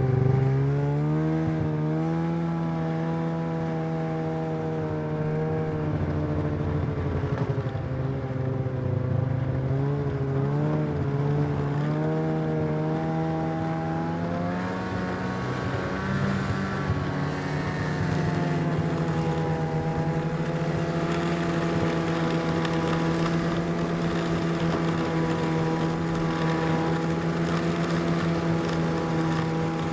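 Snowmobile engine running under way. Its pitch climbs as it pulls off at the start, wavers and dips through the middle, rises again, then holds steady for the last ten seconds or so.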